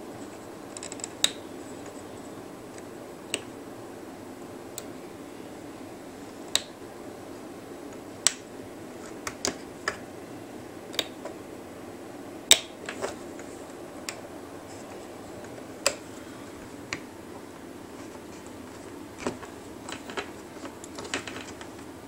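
Irregular sharp clicks and snaps of rubber loom bands being hooked over and slipping off the pegs of a plastic bracelet loom, with the plastic hook tapping the pegs. A few snaps are louder than the rest, over a steady low hum.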